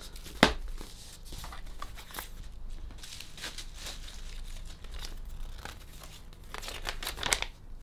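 Paper and packaging rustling and crinkling as the contents of a box are handled, with a sharp knock about half a second in and louder paper handling near the end.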